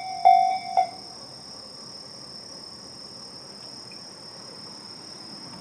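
Japanese level-crossing warning bell of the Tobu 'sound C' slow-tempo type striking twice more and then cutting off about a second in, the sign that the crossing warning has ended. After it, insects chirping steadily in a high, even trill.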